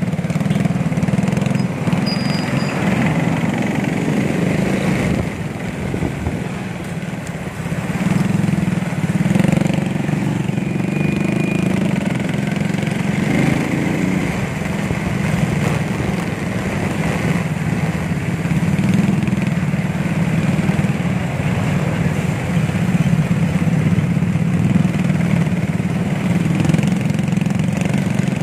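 Small motorcycle engine running steadily while riding in traffic, with the sound of other motorcycles and vehicles around it. It dips briefly about six seconds in.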